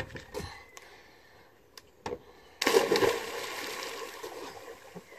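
A person plunging into the sea: a sudden loud splash about two and a half seconds in, then water churning and settling as it dies away. A few faint knocks come before it.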